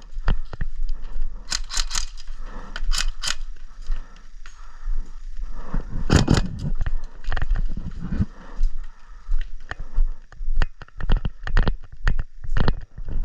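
Irregular scraping, crackling and knocking, like a player pushing through brush with gear and rifle knocking about, over a steady low rumble.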